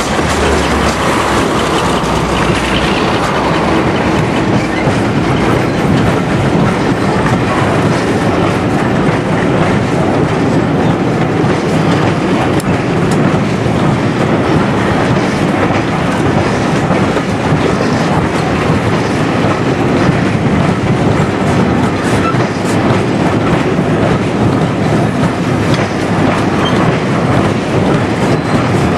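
BR Class 52 'Western' diesel-hydraulic locomotive D1013 passing close by, its twin Maybach diesel engines humming in the first few seconds. Then a long train of coaches rolls past with a steady clickety-clack of wheels over the rail joints.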